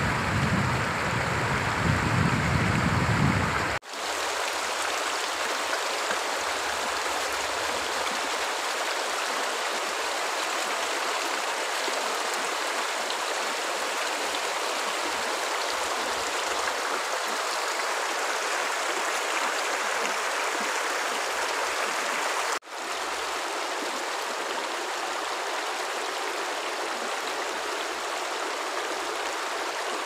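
Shallow rocky river rushing over stones: a steady, even sound of running water. A low rumble sits under it for the first few seconds, and the sound briefly cuts out twice, at about four seconds and again past twenty seconds.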